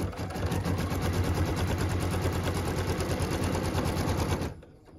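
Computerised embroidery machine stitching a tack-down line through quilt fabric, a fast even run of stitches. It stops about four and a half seconds in.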